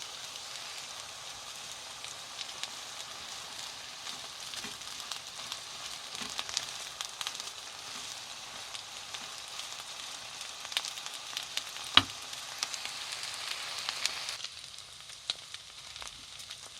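Eggplant and ground meat sizzling as they stir-fry in a hot oiled pan, with scattered sharp clicks of a utensil against the pan and one loud knock near the end. The sizzle drops to a quieter level shortly before the end.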